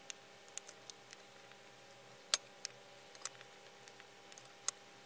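Depotted metal eyeshadow pans clicking as they are picked out of and set against a magnetic palette by hand: a scattered run of sharp little clicks, with two louder ones about halfway through and near the end.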